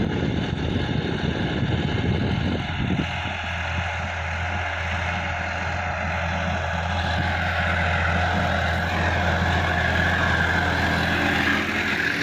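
Sonalika DI-50 RX tractor's diesel engine running steadily under load while pulling a rotavator through tilled soil, a little louder in the second half.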